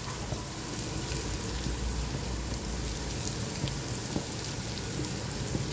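Sliced onions frying in hot oil and ghee in a pot: a steady sizzle with a few scattered small pops.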